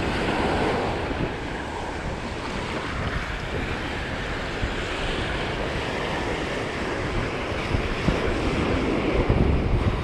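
Ocean surf washing up on a sandy beach, with wind buffeting the microphone in a steady, rumbling rush.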